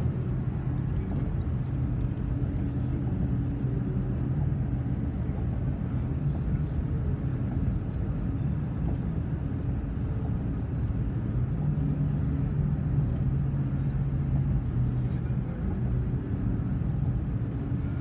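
Car driving at speed, heard from inside the cabin: a steady low rumble of engine and road noise with a low hum that shifts slightly in pitch.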